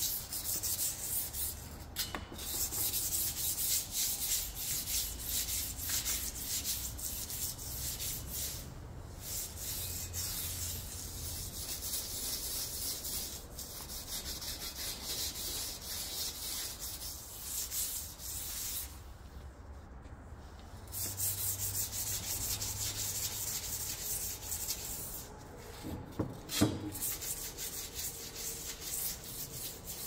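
Chainsaw chain being sharpened with a hand file: rapid, repeated rasping strokes of the file across the cutters, with a few short pauses. A single sharp knock near the end.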